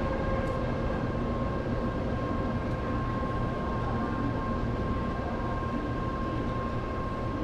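Steady hum and rumble of a Shinkansen bullet train, with a few steady whining tones above it.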